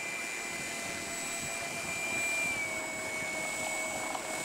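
Electric motor and propeller of a 59-inch Wolf Samson II radio-controlled biplane whining steadily as the model taxis on the ground, the pitch dropping slightly about two-thirds of the way through.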